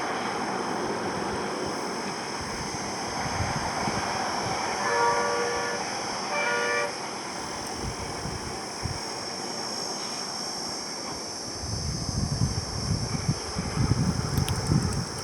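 Steady highway traffic noise, with a vehicle horn sounding twice: a honk of about a second, then a shorter one. Near the end a low, gusty rumble comes in.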